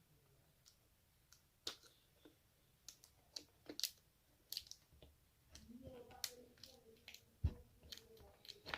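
Faint scattered clicks and ticks of fingers working the wrap film around the edges of a plastic turn signal lens. A faint low hum joins in the second half.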